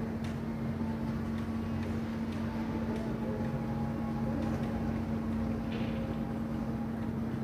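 A boat's engine idling with a steady low hum.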